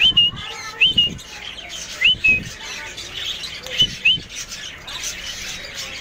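A small parrot giving five short, sharp calls, each sweeping quickly up and then holding its pitch: two in the first second, one about two seconds in, and a quick pair near four seconds.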